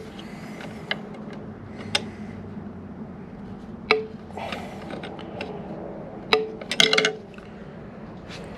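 Hand tools clinking against the metal parts of a motorcycle's rear axle and belt adjusters: a few sharp metallic clinks with a short ring, about two and four seconds in and a quick cluster near the end, over a low steady background.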